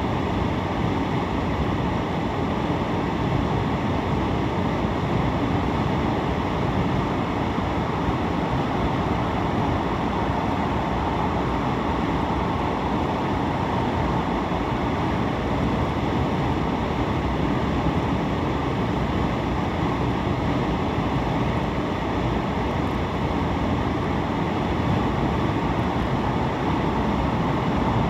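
Steady road and tyre noise of a car cruising along a multi-lane highway, heard from inside the cabin.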